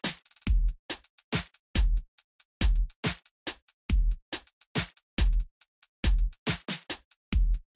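Electronic background music with a drum-machine beat: a deep kick drum about every three-quarters of a second, with short crisp hits between.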